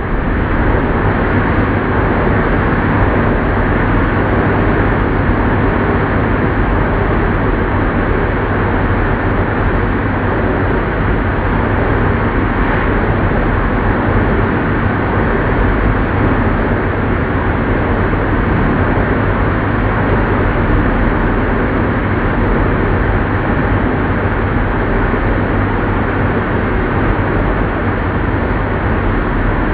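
Old lathe running at a steady speed: a loud, even mechanical noise with a steady low hum underneath.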